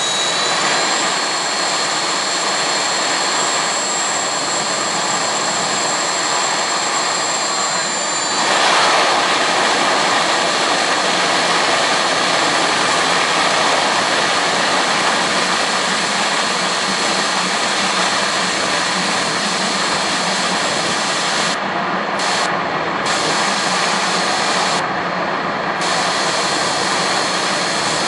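Jet car's jet engine running at full power with the afterburner lit: a loud, steady roar. A high whine over it stops about eight seconds in, and the roar gets a little louder from there.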